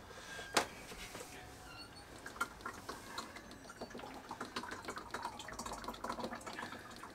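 Used engine oil trickling from an oil suction pump's canister through a funnel into a disposal container, with scattered faint clicks of the plastic canister and funnel being handled.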